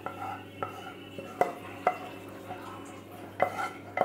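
Serving spoon clinking and scraping against dishes as thick chicken gravy is spooned into a ceramic bowl. About six sharp clinks come at uneven intervals, each ringing briefly.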